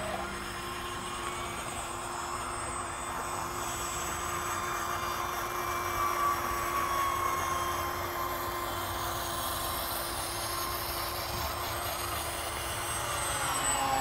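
Radio-controlled model airplane flying overhead, its motor a steady drone whose pitch bends and swells slightly about six seconds in and again near the end.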